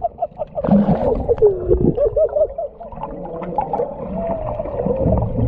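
Sea lions vocalizing underwater: a run of short warbling calls that waver up and down in pitch, with one longer, steadier call a little past the middle.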